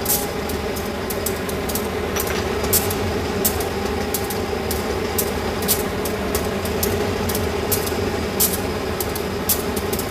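Diesel train engine running steadily, a low hum, with sharp irregular clicks about once or twice a second.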